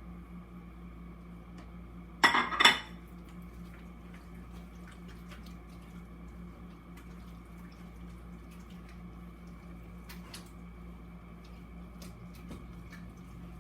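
Kitchen dishes and utensils clattering: one loud clatter of several quick hits about two seconds in, then faint scattered clicks and taps, over a steady low hum.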